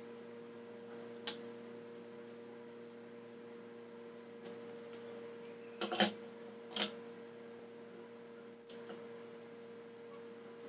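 Steady electrical hum under a few sharp clicks and knocks of plywood pieces and plastic bar clamps being handled on a wooden workbench, the loudest cluster about six seconds in.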